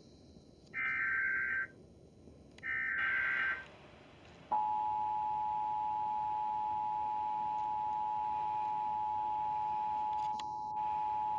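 Emergency Alert System tones: two harsh one-second SAME header data bursts about a second apart, then from about four and a half seconds in the steady two-tone EAS attention signal. Together they herald a Child Abduction Emergency (Amber Alert).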